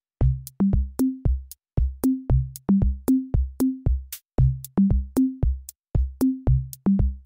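Background music: a drum-machine beat of deep kick thuds and short pitched tom-like hits with thin high ticks, about three hits a second, starting just after a brief silence.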